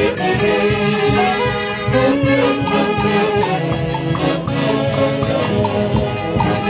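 Live Andean orchestra playing dance music: wind instruments carry the melody over a steady bass beat.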